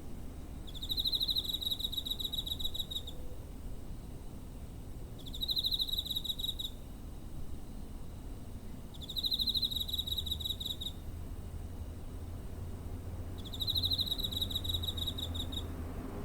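Cricket singing in four pulsed trills of about two seconds each, a few seconds apart, with a steady low rumble underneath.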